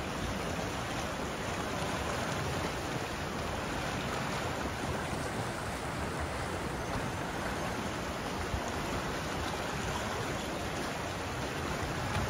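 Whitewater creek rushing steadily over rocks and rapids.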